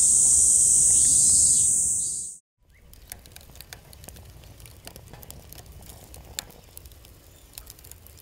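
Food frying on a hot iron griddle, with a loud, hissing sizzle that cuts off abruptly about two seconds in. After a moment of silence, scattered faint crackles and ticks follow over a low rumble.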